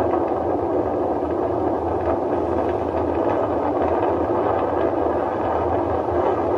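Falcon 9 first stage's nine Merlin engines firing in ascent, heard as a steady, even rushing rumble of rocket exhaust with a deep low rumble underneath.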